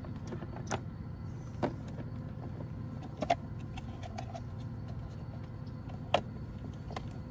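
A few sharp plastic clicks and knocks as a red plastic egg carrier and other containers are handled, the loudest about three seconds in and again near six seconds, over a steady low rumble.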